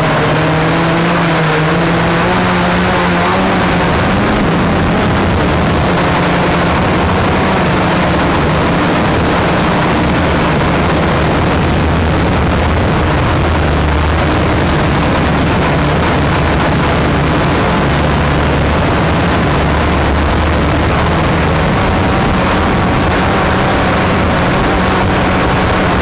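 Flexify quadcopter's electric motors and propellers, heard from the onboard camera: a steady hum whose pitch shifts up and down as the throttle changes during a descent, under a constant rushing noise of wind and prop wash on the microphone.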